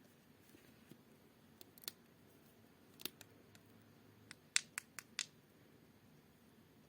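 A scattered series of sharp, crisp clicks and crackles from packaging being handled, about nine in all, bunched most densely between about three and five seconds in.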